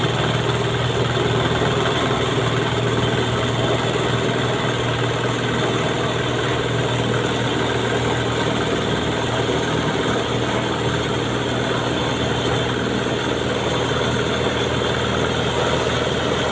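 Engine idling steadily, an unbroken low hum with no change in speed.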